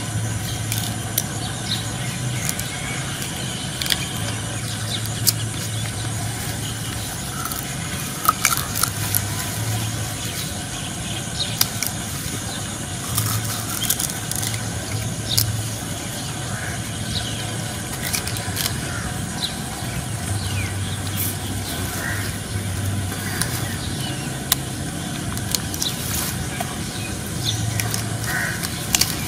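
Sugar cane being bitten and chewed, giving scattered sharp cracks and crunches over a steady low rumble, with a few short high chirps.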